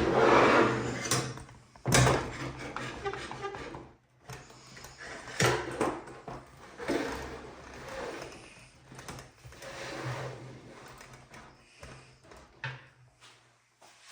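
Irregular knocks, clatter and scraping of wooden drawer parts and hand tools being handled and set down, with a few sharper knocks near the start, about two seconds in and about five seconds in.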